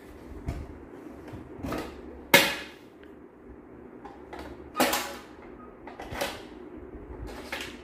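Aluminium tin box being handled: the metal lid clanks open and plastic toys clatter against the tin, about six sharp knocks, the loudest a little over two seconds in.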